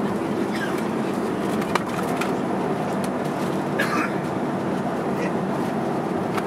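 Cabin noise of a Boeing 737-300 airliner rolling out on the runway after touchdown: a steady rumble of engines and wheels, heard from a seat over the wing, with a few faint clicks.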